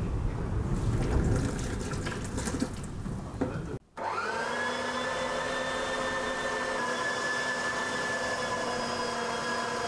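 Low rumbling noise with a few knocks, then, after a short break, an electric meat grinder's motor starts: its whine rises quickly to a steady pitch and keeps running.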